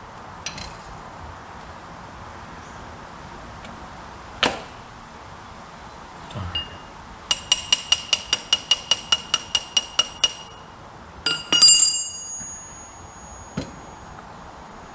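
Metal-on-metal work with hand tools on steel mower caster parts: a sharp knock, then a run of about fifteen evenly spaced ringing metallic taps at about five a second, then a few louder clinks.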